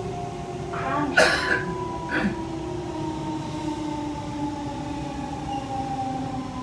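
Siemens C651 metro train heard from inside the car: a steady traction-motor whine over the running noise, falling slowly in pitch as the train slows. A couple of short, sharp noises break in about one and two seconds in.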